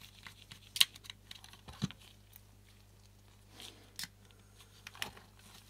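Small screwdriver working tiny screws in a Mamiya-Sekor C 127mm lens's metal housing: a few light, sharp metallic clicks and faint scraping, the sharpest click about a second in and others about two, four and five seconds in.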